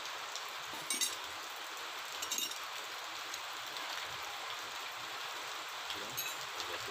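A few light metal clinks as a steel extension bar and an aluminium brake caliper knock together, about a second in, again a little after two seconds, and near the end, over a steady background hiss.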